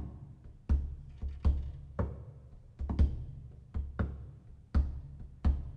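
Upright double bass played pizzicato: a solo bass line of deep plucked notes, about two a second, each note dying away before the next.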